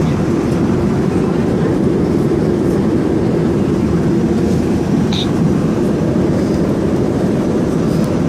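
Airliner cabin noise in flight: a steady, low, rushing drone from the engines and airflow.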